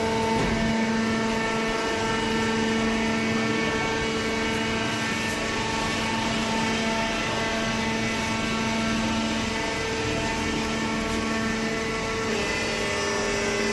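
Hydraulic cardboard baler running: a steady machine hum from its motor and pump, with a slight shift in pitch near the end.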